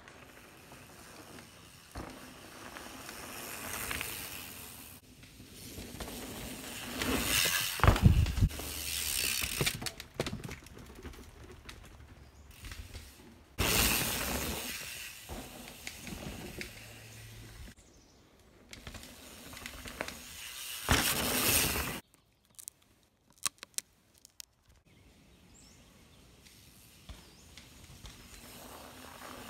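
Santa Cruz Nomad mountain bike riding past several times on a dirt trail: tyre noise on dirt and gravel swells as it nears and fades as it goes, with rattling from the bike and a heavy thud about eight seconds in. Between passes there is quiet forest background with a few faint clicks.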